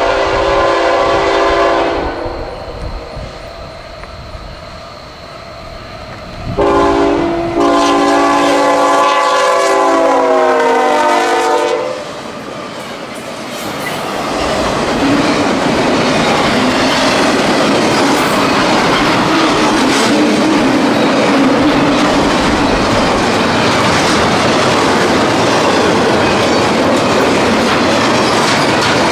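Freight locomotive air horn sounding a short blast, then a longer multi-note blast whose pitch drops as the locomotive goes by. After that comes the steady rumble and clatter of the train's cars rolling past on the rails.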